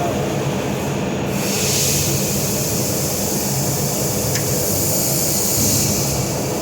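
Laser welding machine running with a steady low hum; a high hiss comes in about a second in and drops away near the end.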